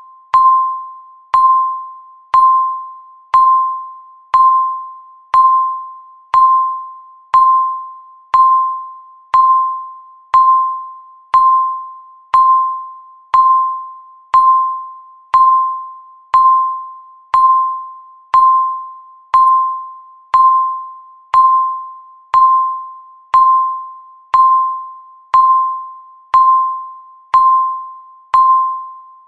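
Countdown timer beep sounding once every second: a single clear ding at one pitch that starts sharply and fades away before the next.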